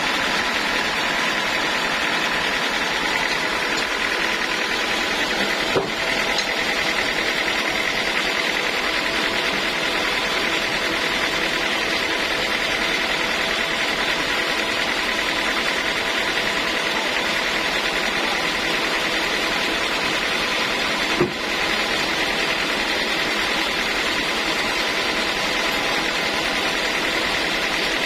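Sawmill machinery running steadily with a constant mechanical whine. Two brief knocks sound, one about six seconds in and one about twenty-one seconds in.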